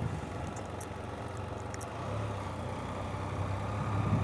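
Vehicle engine running with a steady low hum that grows slightly louder about halfway through, heard from inside the vehicle.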